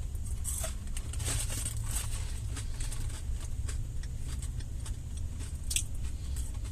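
Eating sounds inside a car: scattered small clicks, rustles and chewing noises over a steady low rumble.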